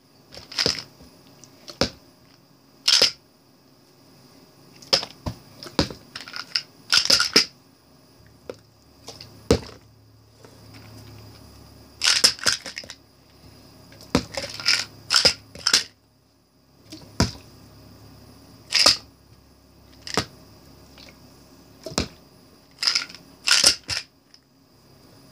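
Small plastic pill bottles being flipped and landing on each other and on a hardback book: irregular sharp plastic clicks and clatters, some single and some in quick clusters of two or three.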